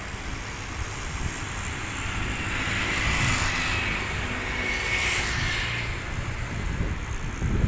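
Distant jet airliner engines, likely the Boeing 737's, swelling to a peak with a whine a few seconds in and then fading, over a steady low rumble of wind on the microphone.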